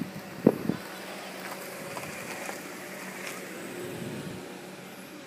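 Three short, sharp thumps within the first second, the loudest about half a second in, over a steady outdoor background hum.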